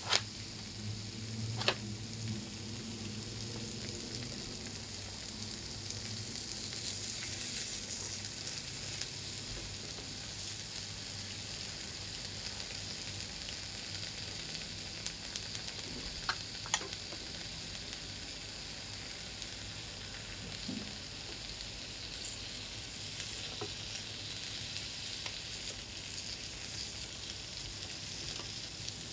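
Pork slices sizzling on an electric grill pan: a steady frying hiss, with a few brief sharp clicks, once about two seconds in and twice around the middle.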